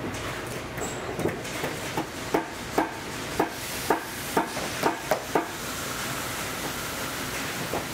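Hammer tapping on a boot in a quick run of strikes, about two to three a second, which stop about five and a half seconds in. A steady rushing noise follows.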